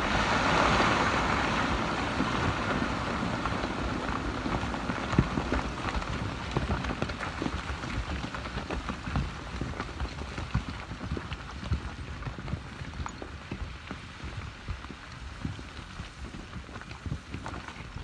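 Broken rock and gravel falling and tumbling down a quarry face just after a blast, in many scattered knocks and a patter, over a low rumble that slowly fades.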